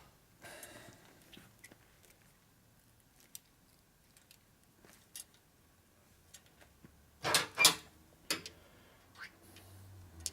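A metal brake line being bent by hand and handled with a tubing bender: scattered faint clicks and taps, then two sharp knocks about seven seconds in and a lighter one just after. A low hum comes in behind them.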